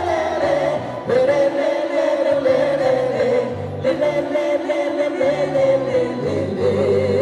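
Music: long held, wordless sung notes with vibrato in a few phrases over a stepping bass line, the opening of a quadrilha junina theme song.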